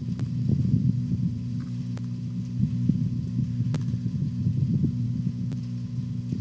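Low, unevenly pulsing rumble of wind buffeting the microphone, with faint clicks about every two seconds.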